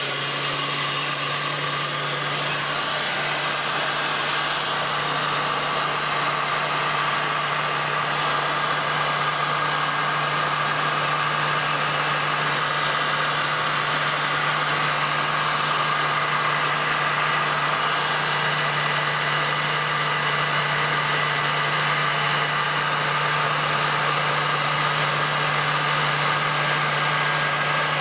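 Heat gun running steadily, its fan blowing hot air onto heat-shrink tubing over copper battery straps, with a steady low hum under the blowing.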